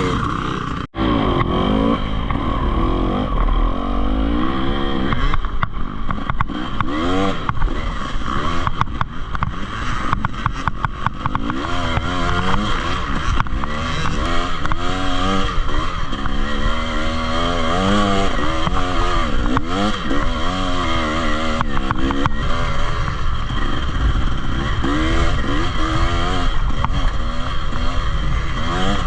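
Enduro dirt bike engine running on a trail ride, its revs rising and falling over and over as the throttle opens and closes, with clatter and knocks from the bike over rough ground.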